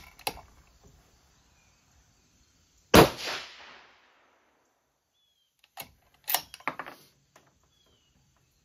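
A 6BR bolt-action rifle fires a single shot about three seconds in, its clean, cold-bore first shot, the report ringing out and fading over about a second. A few seconds later comes a quick series of sharp metallic clicks as the bolt is worked, with a few lighter handling clicks near the start.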